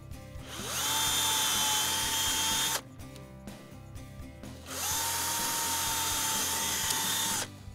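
Small cordless drill boring two holes through a mud flap: two runs of about two seconds each, the motor spinning up with a rising whine, holding a steady pitch while it cuts, then stopping abruptly.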